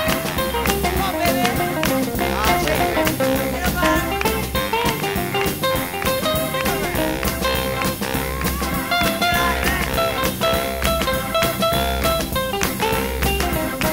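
Background music with a steady beat: an instrumental stretch with no singing.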